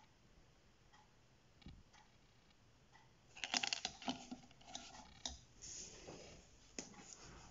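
Posca paint markers clicking and clattering against each other and their pot as one is pulled out: a burst of clicks about three seconds in, then a few scattered clicks.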